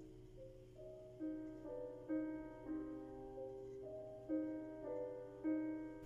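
Quiet background piano music: a slow melody of single notes, about two a second.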